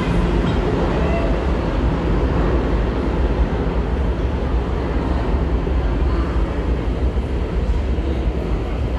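Subway train running through the tunnel, a steady low rumble that does not fade.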